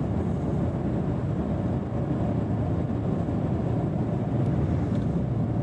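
2019 Ford Raptor pickup driving at road speed, heard from inside the cab as a steady low rumble of engine and tyre noise.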